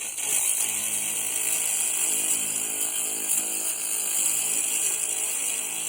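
Pulse laser ablating rust from a steel scythe blade at a low power setting: a steady high-pitched hiss as the beam works over the metal.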